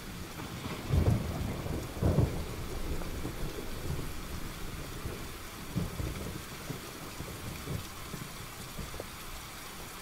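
Heavy rain pouring steadily, with rolling thunder: two loud rumbles about one and two seconds in, then weaker ones later.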